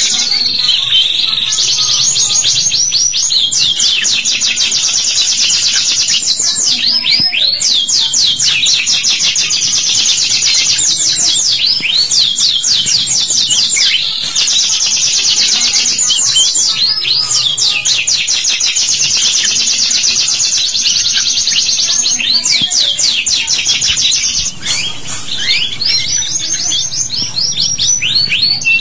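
Domestic canary in full song: long, high trills of rapidly repeated notes with no break, switching every few seconds between very fast rolling trills and slower runs of falling chirps.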